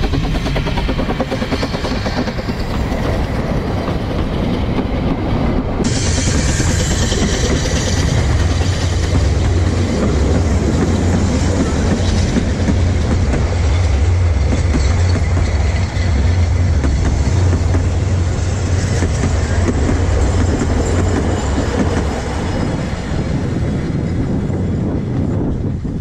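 Narrow gauge steam train running past at close range. A steady low rumble of the coaches rolling by, with wheels clattering over the rail joints, is loudest in the middle and eases off near the end as the train draws away.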